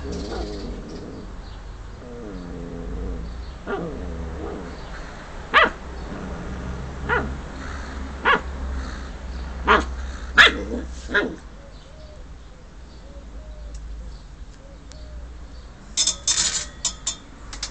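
A dog giving a series of short, sharp barks, some in quick pairs, the loudest a little past the middle. Near the end comes a brief burst of sharp clicking.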